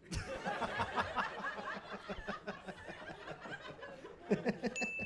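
Audience laughing and chuckling, many voices together, with one louder laugh about four seconds in. A steady high electronic tone comes in near the end.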